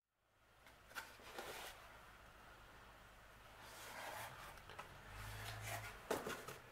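Cardboard being handled on a table: light rubbing and scraping of a glued cardboard entry frame, with a sharp knock about six seconds in as it is set down.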